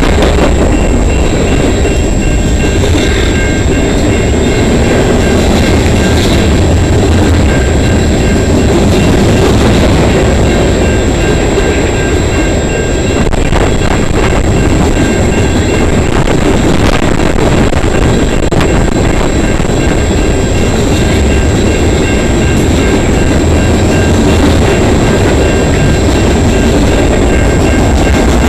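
Freight train cars rolling past close by: a steady, loud rumble and clatter of steel wheels on the rails, with thin steady high tones over it.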